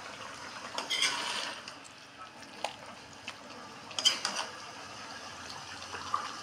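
A metal spatula scraping and knocking against a metal wok while stirring chunks of beef heart and kidney. It comes in two bursts, about a second in and about four seconds in, with a few single clicks between.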